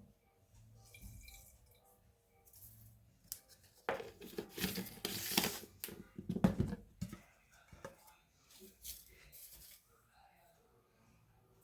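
Rustling, crinkling handling noise, loudest for about three seconds in the middle, with scattered small clicks before and after over a faint background hum.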